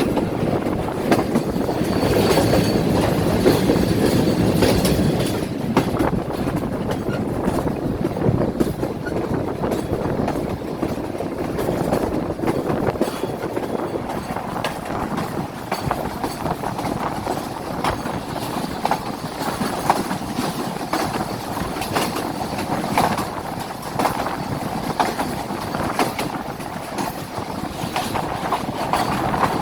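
Awam Express passenger train running along the track: a steady rumble with irregular clicking and clattering of wheels over the rails, a little louder in the first few seconds.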